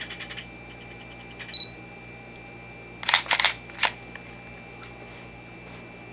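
Canon EOS Rebel T3 DSLR taking a picture: light clicks at the start, a short focus-confirmation beep about a second and a half in, then the shutter and mirror going off about three seconds in as a quick cluster of sharp clacks.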